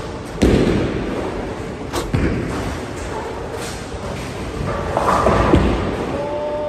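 Bowling alley noise: a heavy thud about half a second in and another about two seconds in, over a steady low rumble of bowling balls rolling down the lanes.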